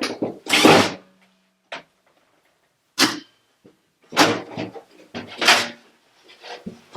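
Irregular knocks and clatter of washing-machine parts and tools being handled during disassembly, in sharp clusters with short pauses between them.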